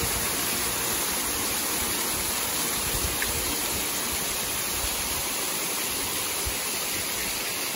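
Small waterfall: thin streams of water spilling over a mossy rock ledge and splashing onto the rocks below, a steady, even rush of water.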